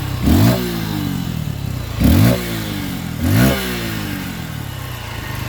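2023 Honda XR150L's 149cc air-cooled single-cylinder four-stroke engine idling while the throttle is blipped three times, each rev rising quickly and falling back, then settling to a steady idle. The engine is being warmed up before an oil change.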